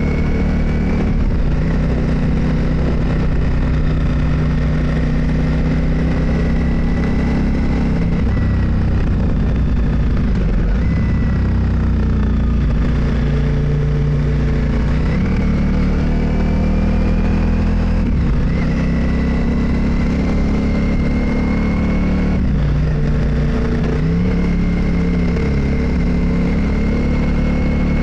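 Motorcycle engine running under way, its pitch rising and falling several times as the rider changes speed and gears.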